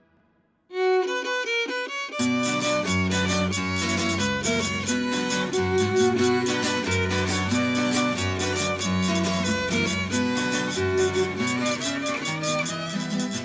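A violin leads a small string ensemble. After a brief hush the violin enters alone under a second in, and low bass notes and strummed accompaniment join about two seconds in.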